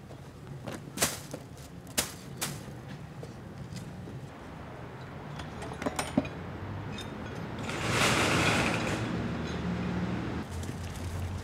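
Sharp knocks of hammer strikes as bamboo sasara brush bundles are fitted to a snow-sweeping tram's rotor: a few single blows, two close together, over a steady low hum. About eight seconds in, a louder rushing noise lasts about a second and a half.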